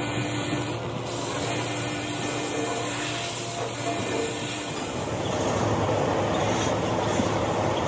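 Hand-held angle grinder with a buffing disc running steadily against a truck tyre's rubber casing, a continuous whine over a rasping grind. About five seconds in the sound changes to a broader, somewhat louder steady rushing noise.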